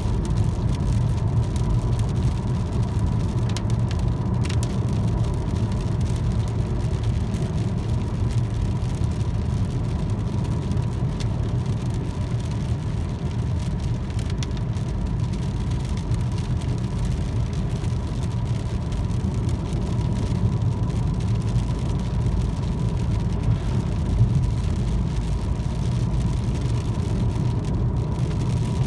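Steady road noise inside a moving car: a low rumble from the engine and tyres on a wet road, with a faint steady high tone over it.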